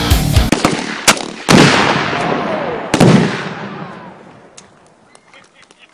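Explosive blasts: a sharp crack about a second in, then two loud booms about a second and a half apart, each trailing a long rolling rumble that dies away.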